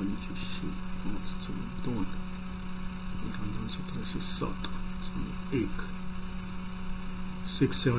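Steady low electrical mains hum picked up through a headset microphone, with faint, brief mutterings and soft hissy sounds now and then.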